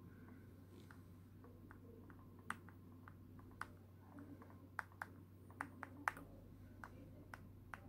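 Stylus tapping and ticking on the touchscreen of a Compaq iPaq H3835 Pocket PC during handwriting: a series of faint, irregular clicks, most of them between about two and a half and six seconds in.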